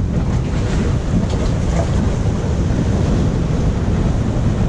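Waves washing and splashing against the rocks of a boulder jetty, with steady wind rumble on the microphone.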